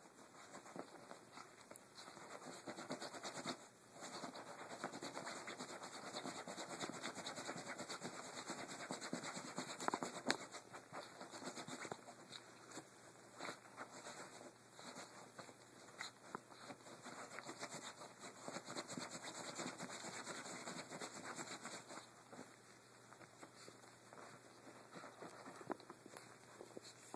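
Miniature pinscher digging at sheets and a pillow with its front paws: rapid scratching and rustling of bedding, quieter over the last few seconds.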